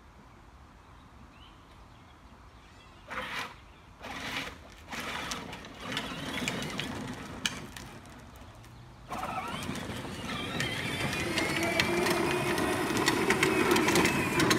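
Child's battery-powered ride-on toy car (a pink Lamborghini) driving on asphalt: its electric motor and gearbox whine steadily along with the plastic wheels rolling, starting about three quarters of the way in and growing louder as it comes closer. A few short noises come before it.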